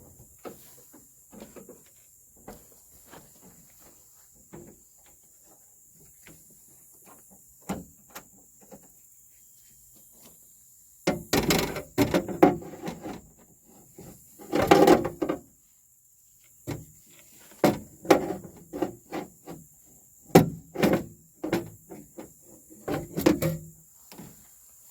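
Hands and tools working inside a Volvo VNL truck door, fitting the lock rods to the door lock cylinders: light clicks at first, then from about ten seconds in, louder bursts of metal-and-plastic knocking and rattling.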